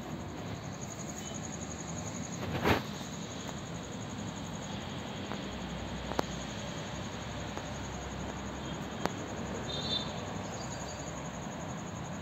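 Crickets trilling in a fast, even pulse over steady background noise, with one sharp knock between two and three seconds in and a couple of fainter clicks later. A few short high chirps come near the end.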